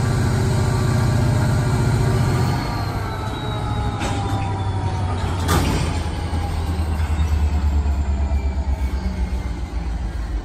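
Diesel-electric locomotive rumbling as it moves a cut of tank cars at slow speed, its engine note dropping lower and pulsing from about two and a half seconds in. Thin high wheel squeals glide slowly down in pitch, and a single sharp metallic clank sounds about five and a half seconds in.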